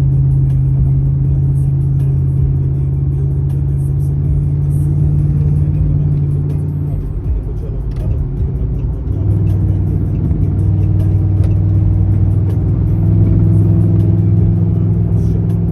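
Car running at freeway speed, heard from inside the cabin: a steady engine drone over road noise. About eight seconds in the drone briefly drops, then settles at a lower pitch.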